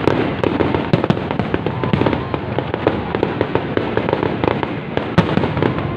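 Fireworks going off in a dense, irregular run of sharp bangs and crackling pops, with one louder bang about five seconds in.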